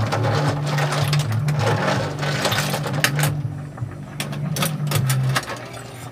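A metal ladle stirring shelled sea snails in an aluminium pot: scraping over the first few seconds, then scattered sharp clinks as shells knock against the ladle and the pot, over a steady low hum.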